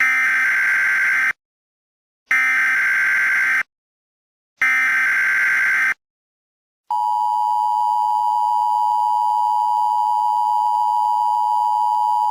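Emergency Alert System tones: three bursts of the SAME digital header, a harsh data screech, each about a second long, followed about seven seconds in by the steady two-tone EAS attention signal.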